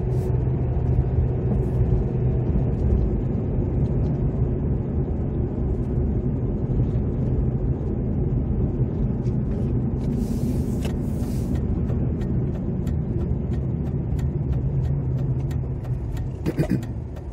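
Road and engine noise heard inside a moving car's cabin: a steady low hum and rumble, with faint regular ticking in the second half. The sound eases slightly near the end as the car slows for a stop sign.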